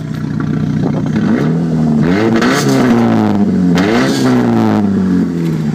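Car engine revved twice from idle, the exhaust note rising and falling in pitch in two swells before settling back to idle near the end. It is revved like a dubstep wobble.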